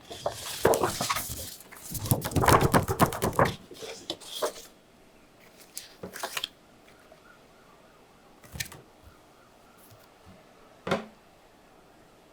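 Paper and packaging being handled: two bursts of rustling and crinkling in the first few seconds, then a few separate taps.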